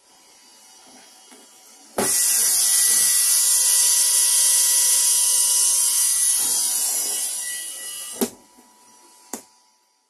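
CNC 3018 Pro desktop router running in its soundproofing enclosure. With the enclosure shut it is a faint hiss. About two seconds in it turns suddenly into a loud, high-pitched whine and hiss with the enclosure open, which eases off before a knock a little after eight seconds; then it is muffled again, with a click about a second later.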